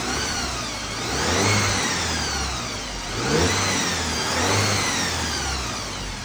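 Audi/VW 2.0-litre turbo engine revved up and back down twice, with a high whine that rises and falls with the revs. The noise is whirly, and the owner suspects a worn balance shaft bearing.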